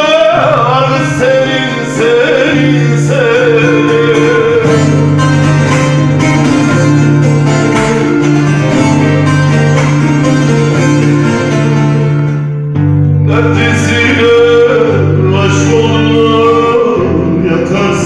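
A man singing a Turkish folk song into a microphone, accompanying himself on a plucked string instrument. A steady low drone runs under a wavering, ornamented vocal line, with a short break about two-thirds of the way through.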